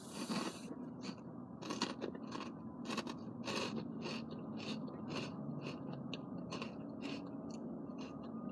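A person chewing a mouthful of ice cream and wafer cone, with soft crunching and wet mouth sounds about twice a second.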